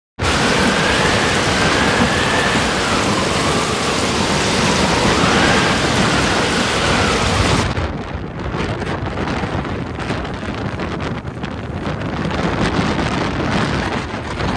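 Strong gale buffeting the microphone: a loud, continuous rush of wind noise. A faint whistle wavers up and down in the first half, and about halfway through the rush turns duller.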